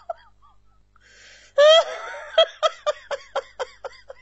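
High-pitched laughter: the last short laugh of a run right at the start, then after a pause a rising 'ha' about one and a half seconds in, followed by a string of short laughs, about four a second, that die away.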